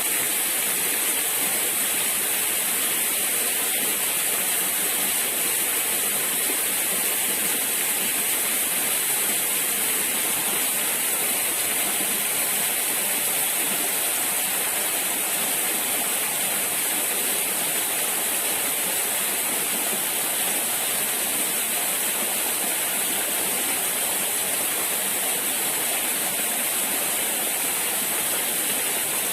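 Steady rush of flowing water, like a stream running over rocks, unchanging throughout.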